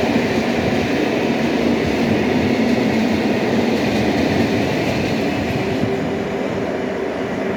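A freight train of Eas and Eanos open wagons rolling past, its wheels making a steady rumble on the rails that eases slightly near the end.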